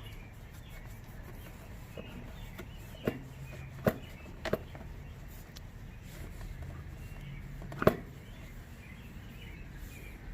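Handling noise while a motorcycle's air box and frame are wiped down with an alcohol-soaked towel: a few sharp clicks and knocks, the loudest near the end, over a steady low hum.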